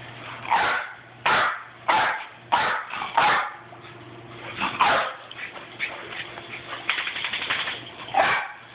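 Dog barking in short, sharp barks: about five in quick succession over the first few seconds, then a couple more. A quick run of light clicks comes near the end.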